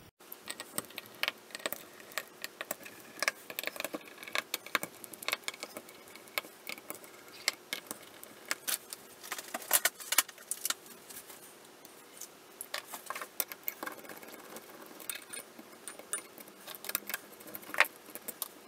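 Small metal tools clicking and clinking on the metal housing of a Soviet aircraft Mach meter as its screws and air-inlet nuts are loosened: an irregular run of sharp metallic clicks.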